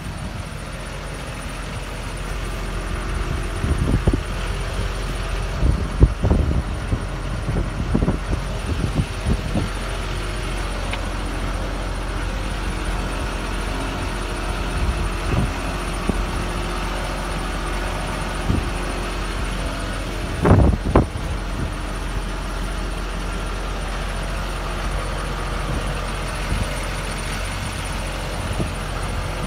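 GMC C5500 dump truck's engine idling steadily, with a few dull bumps on the microphone, most of them a few seconds in and a pair of louder ones about two-thirds of the way through.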